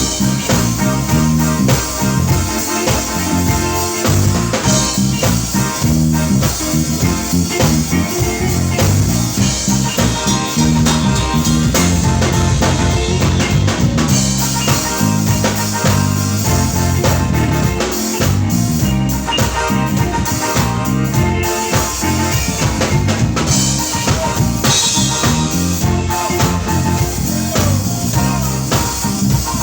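Funk groove played on drum kit and guitar, with a busy low line of changing notes under a steady beat.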